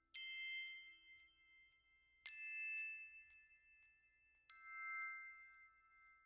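Three faint struck chime notes about two seconds apart, each ringing on and slowly dying away.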